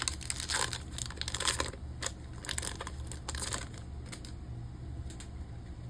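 Foil wrapper of a Pokémon TCG booster pack being torn open and crinkled by hand, a rapid crackling rustle that dies away about four seconds in.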